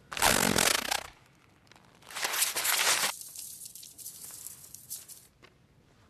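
A howler, an enchanted red letter, gives a short loud burst of sound, then about two seconds in rips itself to shreds with a second loud tearing sound lasting about a second, followed by a faint high rustle as the paper scraps flutter down.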